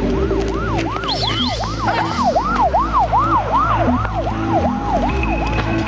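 A siren in fast yelp mode, its pitch sweeping up and down about three times a second, over a low, steady music score.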